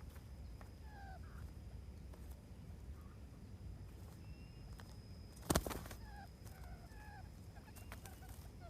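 Quail calling with short, sliding notes, repeated faster and more often in the second half, with one sharp click about five and a half seconds in.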